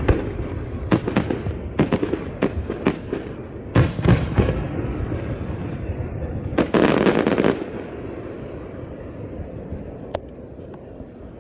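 Aerial firework shells bursting: a quick string of sharp booms over the first few seconds, then a dense crackling burst lasting about a second near the middle, fading away after.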